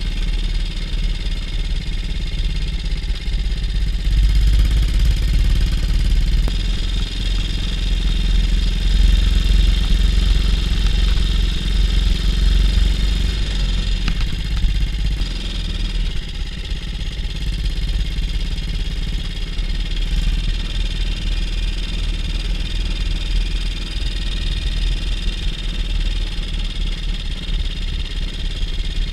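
BSA C15 Star 250 cc single-cylinder four-stroke motorcycle engine running steadily under way at a slow cruising pace, heard from the rider's seat, a little quieter from about halfway through.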